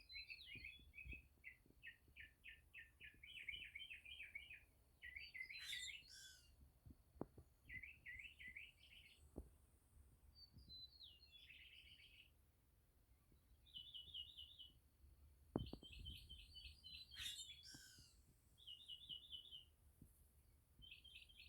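A grackle gives a short, harsh squeaky call twice, about eleven seconds apart, while a northern mockingbird sings runs of rapid repeated chirps in the background. There is a single low thump about two-thirds of the way in.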